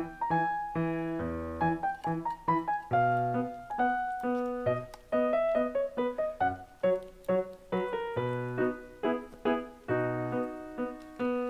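Background piano music: a melody of separate piano notes, each dying away, a few a second.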